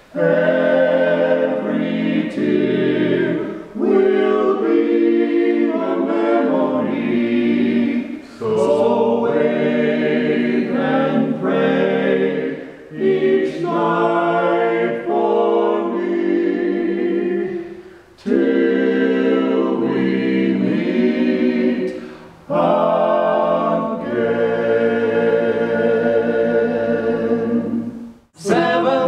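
Barbershop quartet of four male voices singing close harmony a cappella, in long held chords, with short breaks between phrases.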